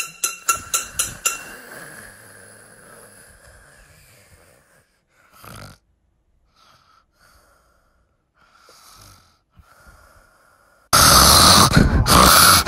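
A person snoring: soft breathy snores, then a very loud, rasping snore breaks in near the end. At the start, a quick run of about six knocks.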